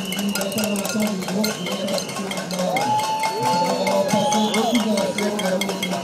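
Protesters banging pots and pans (a casserole protest): a continuous clatter of many metal strikes, with crowd voices and a long held call about halfway through.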